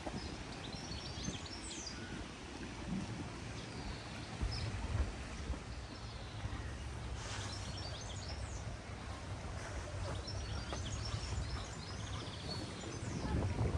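Birds chirping and calling in short, scattered bursts from the surrounding trees, more of them near the end, over a steady low rumble.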